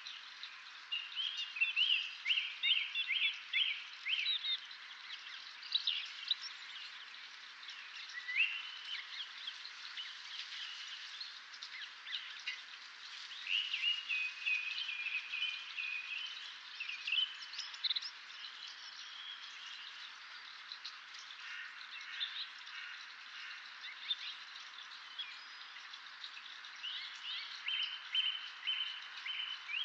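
Dawn chorus: several songbirds singing at once, with overlapping chirps and trills throughout, over a steady background hiss.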